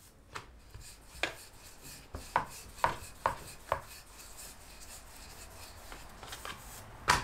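Rolling pin working mathri dough on a rolling board (chakla): a low rubbing with a series of sharp knocks as the pin and board clack, the loudest knock near the end.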